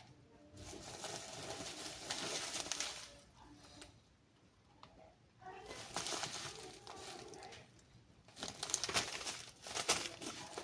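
Parcel packaging being crinkled and torn open by hand, in three spells of rustling with short pauses between.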